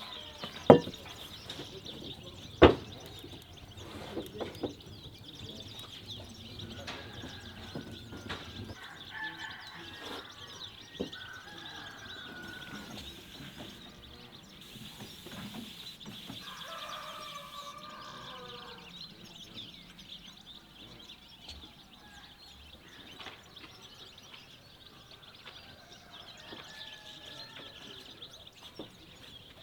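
Chickens clucking now and then, over a steady high-pitched buzz, with two sharp knocks in the first few seconds.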